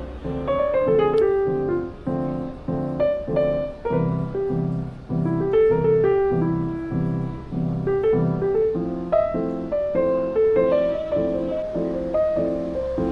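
Background piano music: a gentle melody over chords struck in an even rhythm, about two a second.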